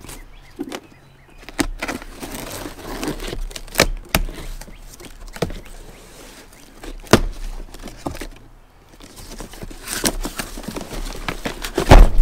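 A taped cardboard box being cut and opened: scraping and crackling of packing tape and cardboard, with several sharp clicks and knocks. Louder rustling and thumps come near the end as the flaps are pulled open.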